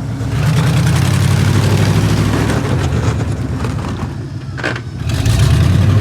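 Vehicle engine revving under load in snow, rising about half a second in, easing off for a moment after four seconds, then revving up again near the end.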